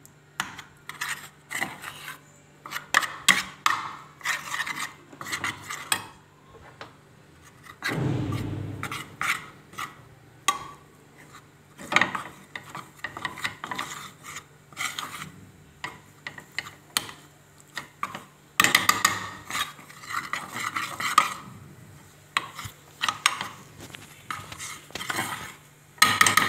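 Metal spoon scraping and clinking against a small stainless steel saucepan in irregular strokes, stirring butter into starch to make a roux, with a dull low bump about a third of the way in.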